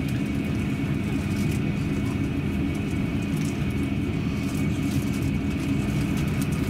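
Airbus A350-900 cabin noise during pushback: a steady low drone with a thin, steady high whine over it.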